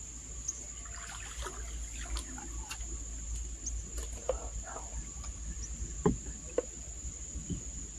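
A steady high-pitched insect drone, with scattered small clicks and chirps and two sharp knocks about six seconds in.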